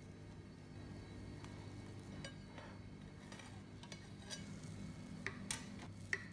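Metal cake base scraping and clicking lightly against a ceramic plate as it is slid out and lifted away, with two sharper clinks near the end, over a steady low hum.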